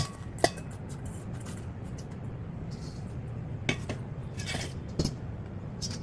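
Hands tossing salted shredded carrot in a stainless steel bowl: a few light knocks and clinks against the metal, with some rustling of the vegetables.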